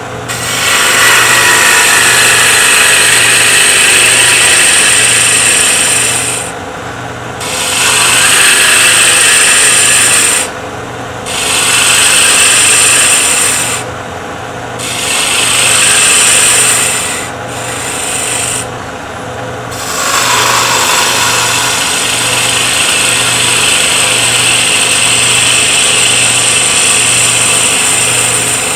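Spindle gouge cutting a spindle blank on a running wood lathe: a loud, rasping cut sound in repeated passes, dropping out briefly about five times between passes over the lathe's steady hum. The last pass, from about two-thirds of the way through, runs longer and is taken slower for a smoother surface.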